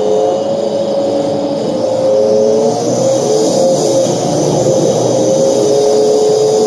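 Cabin noise of a New Flyer C40LF natural-gas city bus running along, a steady rumble with a whine from the drivetrain that drifts slightly up and down in pitch.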